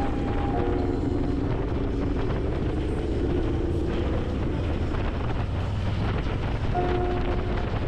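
Motorcycle riding at speed: the engine running steadily under wind noise buffeting the microphone.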